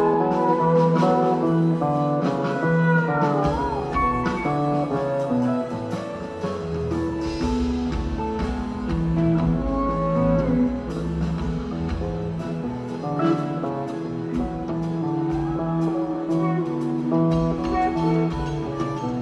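Instrumental background music led by guitar, with a few sliding notes about three seconds in.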